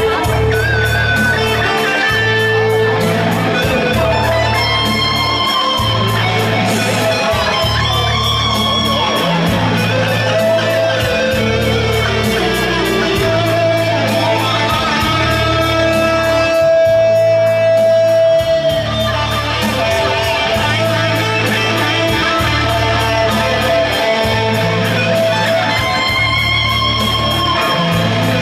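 Amplified band music: a steady line of low bass notes, each held about a second, under a plucked electric guitar-like lead with held melody notes.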